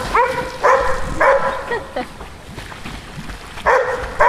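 A dog yelping in short, high, excited cries: four quick yelps in the first two seconds, a pause, then another near the end.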